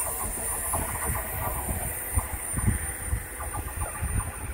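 Electric passenger train pulling away down the line, its wheels rumbling and knocking irregularly over the track. The sound fades toward the end.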